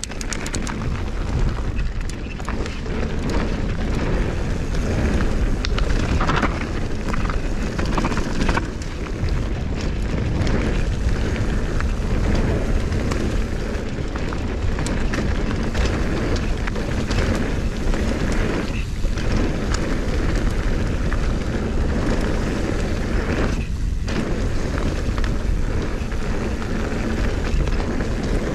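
Mountain bike riding down a dirt and gravel trail: a steady, loud rumble of tyres on the ground and wind on the microphone, with frequent rattles and clicks from the bike over rough ground.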